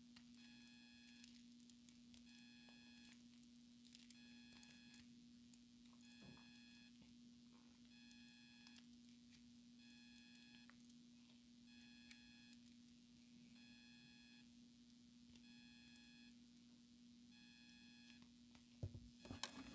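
Near silence, with a faint steady hum and a faint electronic beep repeating about once a second. Near the end, a short bout of soft handling noise as the slime is pulled apart.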